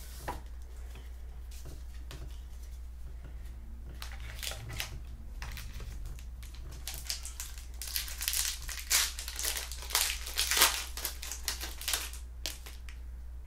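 Foil wrapper of a 2000 Bowman football card pack crinkling and tearing as the pack is opened. The crackles are sparse at first and come thick and loud in the second half, then stop shortly before the end.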